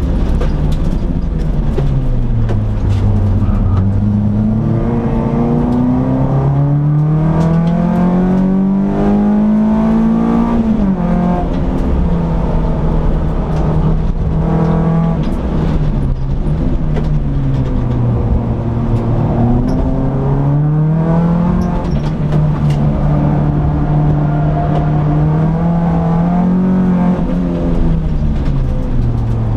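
Peugeot 206 S16's two-litre 16-valve four-cylinder engine heard from inside the cabin while lapping a circuit. The revs climb hard under acceleration, drop off sharply into braking and corners, and hold steady in between, with road and wind noise underneath.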